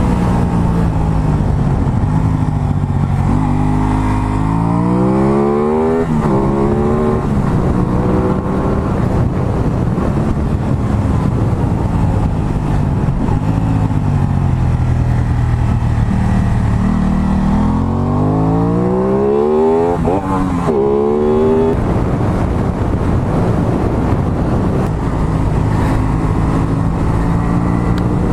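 Aprilia Tuono 660's parallel-twin engine pulling hard twice, revs climbing steeply and dipping briefly at each upshift, about three seconds in and again near twenty seconds, with steadier running in between. Wind rushes over the onboard microphone throughout.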